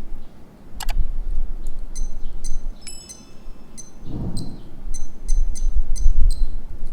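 Casio TRI-10W digital watch beeping as its buttons are pressed in the hand-adjust setting: a click, then about ten short high beeps in quick succession, one of them longer, over low handling rumble.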